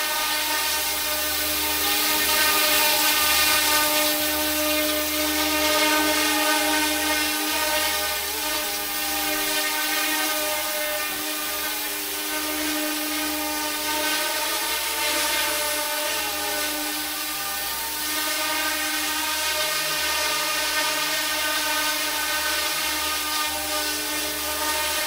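RC scale AH-64 Apache helicopter's motor and rotors running steadily: a high, constant whine with many overtones that swells and eases slightly in loudness.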